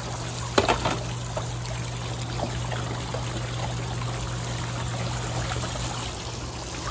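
Water running and trickling steadily in a children's water-play table, with a sharp click about half a second in.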